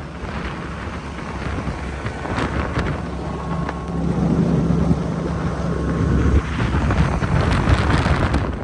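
A boat's motor running under way, with wind rushing over the microphone; a steady low hum comes up in the middle, and there are a few knocks near the end.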